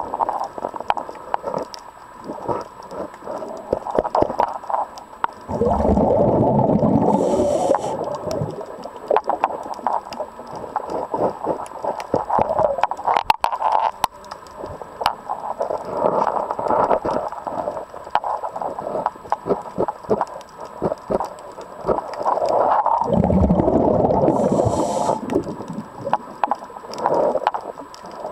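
Underwater recording: a diver's exhaled bubbles rumble out twice, each burst lasting two to three seconds, over scattered small clicks and taps.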